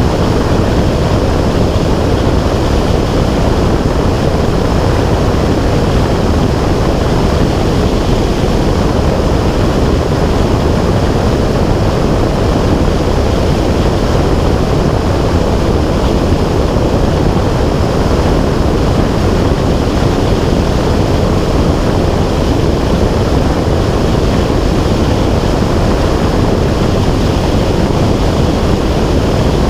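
Loud, steady wind noise buffeting the microphone from airflow past a camera in flight: a deep, even rush with no breaks.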